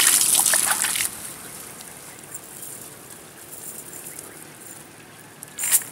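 Water splashing and sloshing for about the first second, then quiet open-air background with a brief splash near the end.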